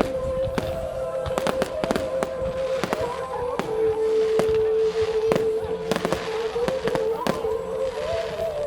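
Fireworks going off: a rapid, uneven run of sharp bangs and crackles from bursting shells, over a steady held tone that shifts pitch slightly a few times.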